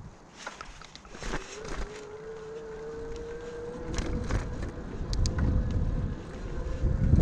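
Bicycle riding along a street: tyre and road noise with wind buffeting the camera microphone, rising toward the end as the bike gathers speed, over a steady hum and a few knocks from bumps in the road.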